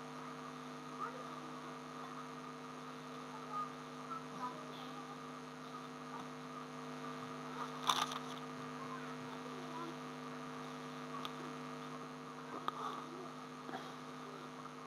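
Steady electrical mains hum picked up in the recording, made of several constant tones. A few faint clicks sound over it, the sharpest about eight seconds in.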